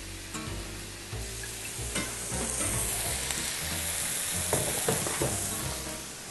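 Chicken breasts sizzling on an electric indoor grill. The sizzle swells about a second in and eases off near the end, with a few light knocks partway through.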